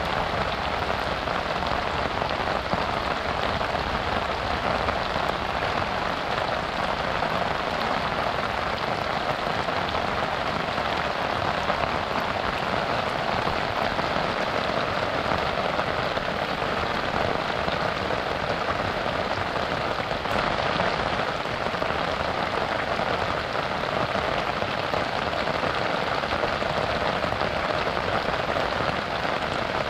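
Steady rain falling, an even hiss of countless drops that holds the same level throughout.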